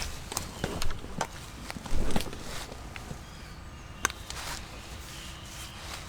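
Footsteps on the forest floor: a few irregular steps and crunches in the first three seconds, then only a few scattered clicks.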